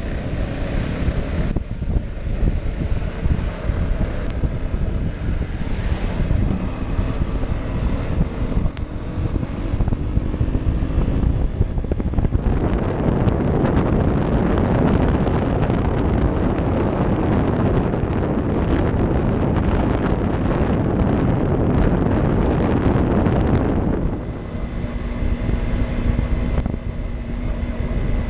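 Motorcycle ride on a wet road heard through a GoPro: wind rumbling on the microphone over the KTM Duke's single-cylinder engine, whose pitch rises and falls a little early on. From about halfway, a louder rushing hiss lasts some ten seconds, then the engine settles to a steady hum.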